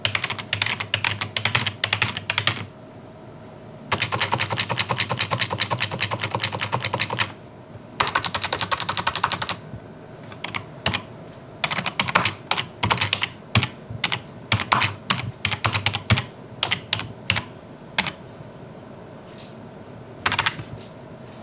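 Typing on a Logitech MK270 wireless membrane keyboard, with keystrokes clattering at quite a high tone. Three fast bursts of typing come in the first half, then slower, separate key presses.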